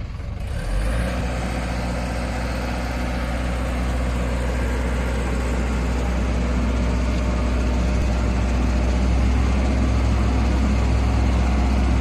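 Skid steer loader's engine running steadily, a low, even drone that settles to a constant note about a second in.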